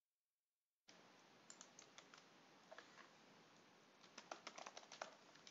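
Faint computer keyboard typing over low microphone hiss, starting about a second in. A few scattered keystrokes come first, then a quicker run of about ten near the end.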